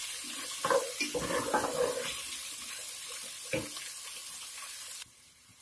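Cut okra frying in hot oil in an aluminium pot, a steady sizzle with a few scrapes of a wooden spatula stirring it. The sizzle cuts off suddenly about five seconds in.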